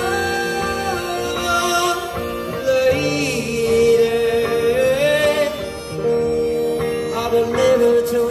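A small band playing an old pop song live on electric guitars, with a held lead melody that slides and bends between notes over the accompaniment.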